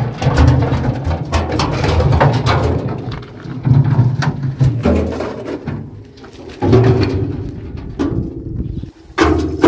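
Concrete blocks and mortar being worked by hand: knocks and scrapes as the blocks are set, with low rumbling in several stretches of a second or two.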